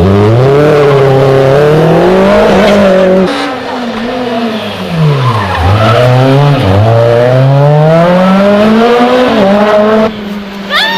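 Rally car engine driven hard, revving up with its pitch climbing, then backing off and falling before accelerating again through the rev range. The engine goes quieter for a moment about a second before the end.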